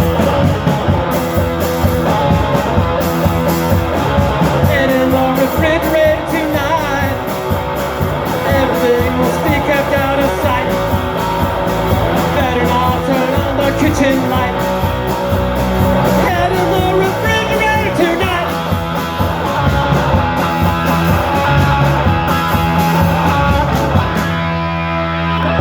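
Rock band playing: electric guitar lines over bass and a steady drum beat.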